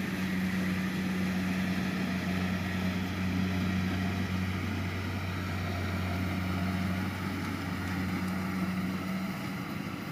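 Kubota rice combine harvester running as it cuts and threshes rice: a steady engine drone with no change in pitch, over the rattle of the machinery. It grows slightly quieter near the end as the machine moves away.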